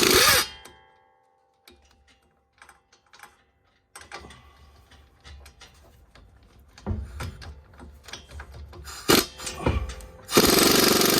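Impact gun hammering a nylock nut onto a new sway bar link's ball-joint stud. It stops about half a second in, followed by light clicks and knocks of handling. The gun runs again steadily for the last second or so.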